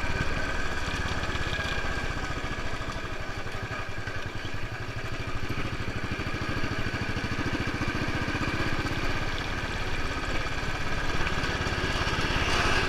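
Motorcycle engine running steadily under way, with its even firing pulses and road noise.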